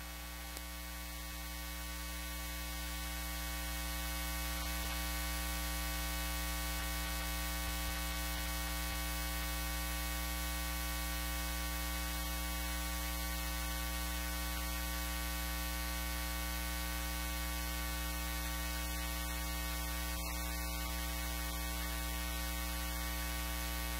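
Steady electrical mains hum, a low buzz that grows a little louder over the first few seconds and then holds even.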